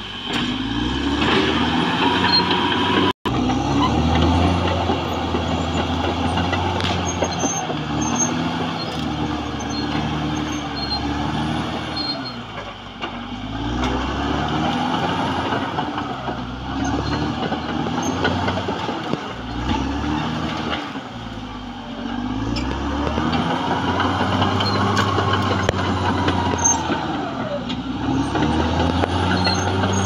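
Caterpillar D6R XL bulldozer's diesel engine working under load, its pitch rising and falling over and over as the machine pushes earth and roots, with a few knocks along the way.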